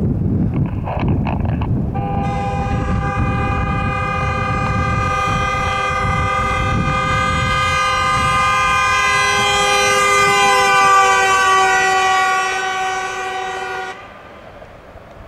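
A Chevrolet SUV's horn is held down for about twelve seconds over a low rumble, then cuts off suddenly. Its pitch sags slightly as the car goes past, showing the Doppler effect.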